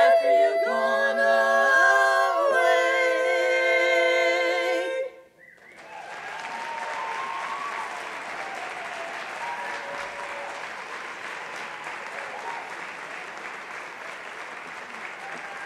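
A women's barbershop quartet sings the last chords of a song a cappella, changing chords twice and holding the final one until a clean cutoff about five seconds in. The audience then applauds steadily.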